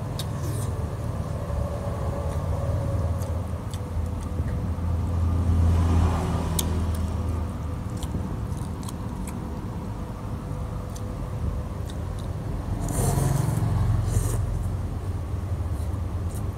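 Eating noodle soup: scattered sharp clicks of chopsticks and a metal spoon against a glass bowl, and short slurps of noodles, over a low rumble that swells twice, about five seconds in and again near thirteen seconds.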